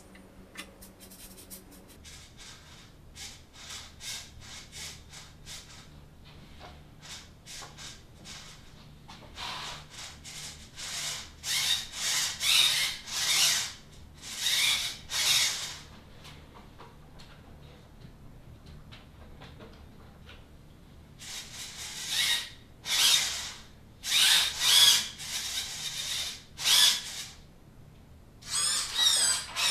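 Small screwdriver scraping and rubbing on the servo arms and screws of a 3D-printed RC car chassis, in short bursts that come in clusters, louder in the middle and near the end.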